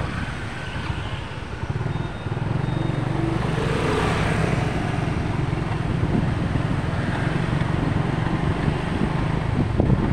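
A vehicle engine running steadily amid outdoor noise, its low drone growing louder about two seconds in and holding.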